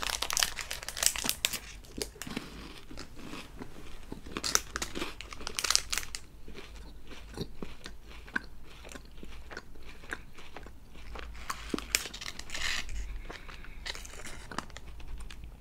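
Crunching bites and chewing of KitKat chocolate wafer, with dense bursts of crisp crunches near the start and about a third of the way in, sparser chewing between, and another cluster of crunches near the end.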